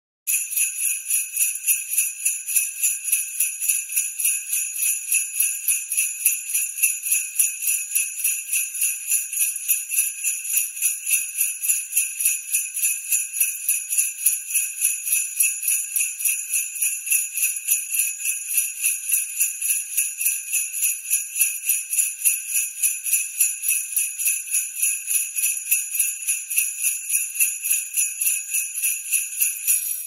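Jingle bells (sleigh bells) shaken continuously in a quick, even rhythm, a bright metallic jingling with no pause.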